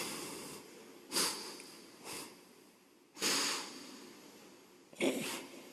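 A man's breaths close to the microphone during a pause in recitation: four short noisy intakes, about a second in, around two seconds, a longer one a little after three seconds, and one near the end.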